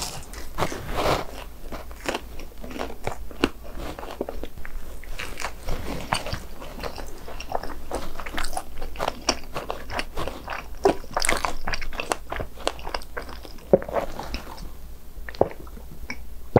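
A person crunching and chewing crispy fried, Bburingkle-seasoned snacks (BHC Bburing hot dogs and cheese balls). The bites are dense and irregular, easing off briefly near the end.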